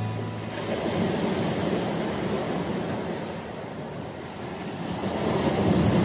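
Small sea waves washing in over a rocky shore, a steady rushing surf that grows louder near the end as a wave breaks.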